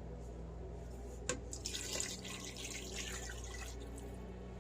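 A click, then water running from a kitchen tap for about two seconds before it stops.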